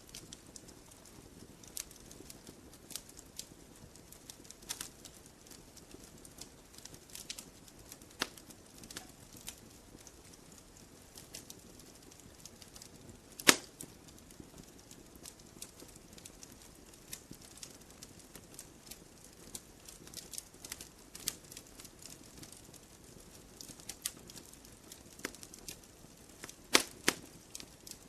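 Logs burning in a campfire, crackling: sharp irregular pops and snaps over a low, steady hiss. One loud snap comes about halfway through, and a quick cluster of snaps comes near the end.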